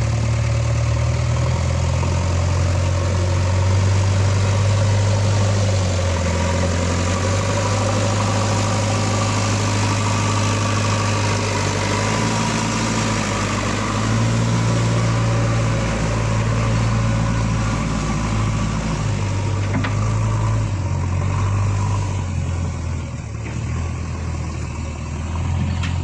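Diesel engines of a JCB backhoe loader and an Eicher tractor running steadily, the engine note rising and falling as the machines work to free the tractor's trailer from the mud. The sound eases off somewhat near the end.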